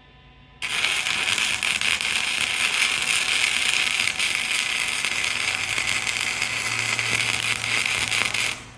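Electric arc welding: a steady, loud crackle of the welding arc that strikes about half a second in and holds for about eight seconds before cutting off sharply, as one bead is run.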